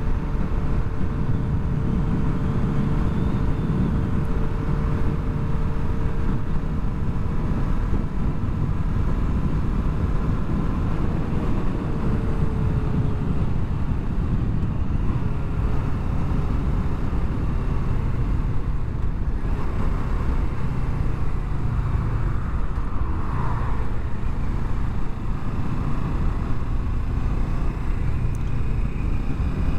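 Steady wind noise over the microphone of a moving motorcycle, with the Kawasaki Ninja 650's parallel-twin engine running underneath. The bike slows from motorway speed to ramp speed, and a faint engine tone drops in pitch and fades about a third of the way in.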